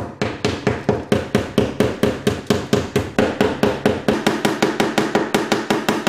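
Ball-pein hammer rapidly tapping a rusted steel car body panel, about five even strikes a second, knocking out loose and flaky rust.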